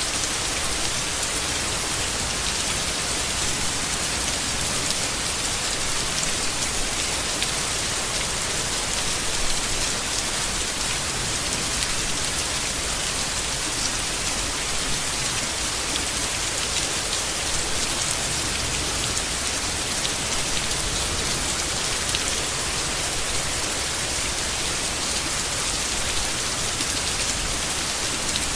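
Steady rain falling on leaves, an even hiss with fine drop patter throughout.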